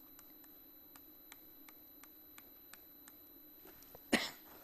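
A person coughing once, sharply, about four seconds in, after a quiet stretch with faint scattered light clicks.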